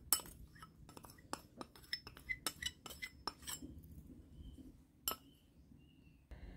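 Spoon clinking against a stainless steel mixing bowl and a small cup while cornstarch is tipped in: a quick run of light clinks for about three and a half seconds, then one more clink about five seconds in.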